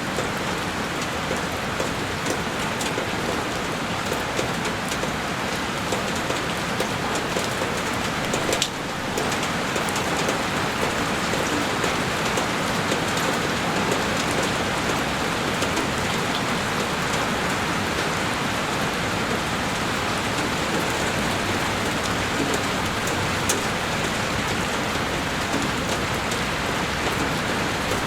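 Heavy rain falling steadily on a window: a dense, even hiss full of small sharp drop ticks. It dips briefly about nine seconds in and comes back slightly louder.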